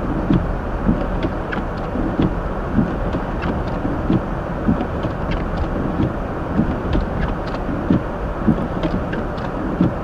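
Inside a Hyundai Elantra driving on snowy roads: a steady rumble of road and heater-fan noise with frequent short, irregular knocks and ticks.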